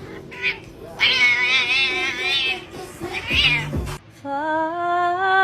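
A cat yowling in drawn-out, wavering cries, the longest lasting about a second and a half. About four seconds in the cries cut off, and a smooth, slowly rising drawn-out tone begins.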